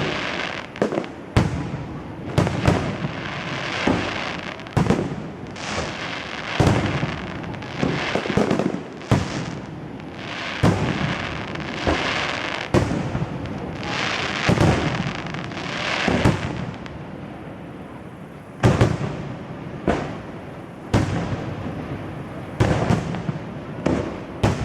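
Fireworks display: a rapid run of shell bursts, bangs often less than a second apart, over continuous crackling. The bangs thin out for a few seconds past the middle, then a few loud ones come again near the end.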